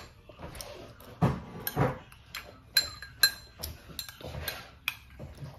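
Metal spoon clinking and scraping against a ceramic bowl while eating. Several sharp, briefly ringing clinks come as the spoon scoops rice from the bowl.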